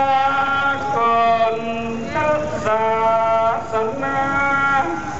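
A man's voice singing a slow Northern Thai (Lanna) 'ue' chant: long held notes that step from pitch to pitch, with downward slides between phrases.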